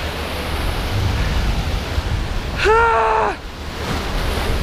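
Ocean surf washing over rocks, with wind on the microphone. About three seconds in, a person lets out a short shout.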